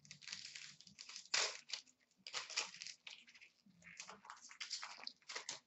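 Hands rustling through a stack of 2017-18 Upper Deck SP Authentic hockey cards and a crinkling pack wrapper, in short irregular bursts of rustling with the loudest one about a second and a half in.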